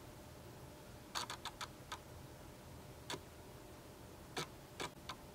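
Faint, sharp clicks over quiet room tone: a quick run of four or five about a second in, then single clicks at about three seconds and three more near the end.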